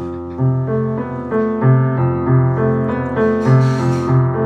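Background music played on piano: a steady run of repeated notes over a low bass line.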